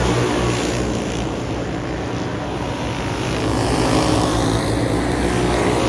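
Race car engines running at speed, a loud continuous drone that eases off slightly in the middle and builds again near the end.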